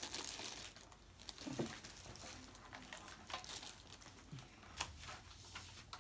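Faint handling noise: light crinkling and rustling with scattered small clicks as a laptop charging cable is picked up and moved about on a desk.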